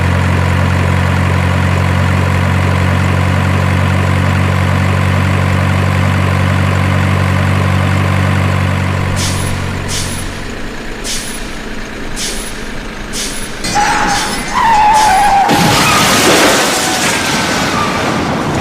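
A heavy truck engine runs steadily, then cuts off about ten seconds in. A run of sharp clicks about twice a second follows, then a brief squeal that slides in pitch and a loud rushing noise near the end.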